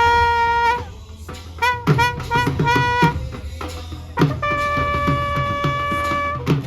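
Instrumental music without singing: long held wind notes, a brass or reed sound, over a steady drum beat, with a run of short notes in the middle.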